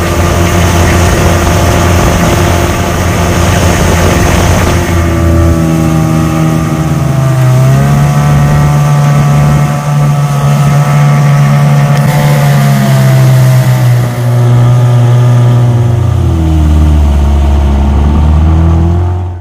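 Small boat's outboard motor running under way. Its pitch rises in steps about five and eight seconds in, then drops back near sixteen seconds, and the sound cuts off suddenly at the end.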